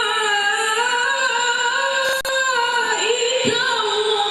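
A young man chanting Quranic verses in the melodic, sung style of tilawah, amplified through a handheld microphone: long held notes with winding, ornamented pitch turns. A brief break with a click about two seconds in.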